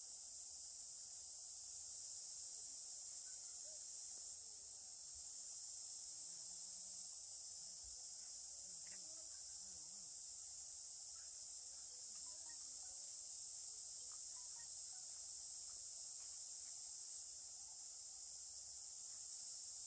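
A steady, high-pitched insect chorus, like crickets, that keeps an even level throughout.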